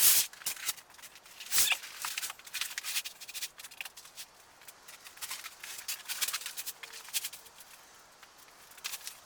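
Hands handling timber and materials on a workbench: scattered knocks, clicks and rubbing, with sharper knocks at the start and about a second and a half in.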